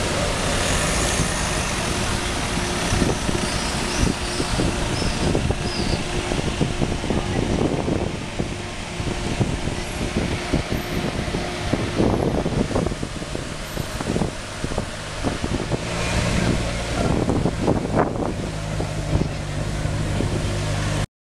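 Ferrari 599 GTO's V12 engine running at low revs as the car crawls past in slow traffic: a steady low engine note over street noise.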